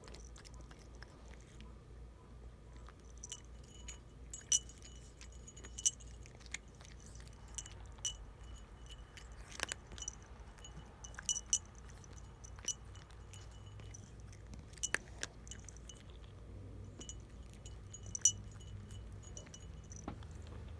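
A tortoiseshell cat eating treats: scattered small clicks and clinks, many with a brief bell-like ring at the same high pitches, over a steady low hum.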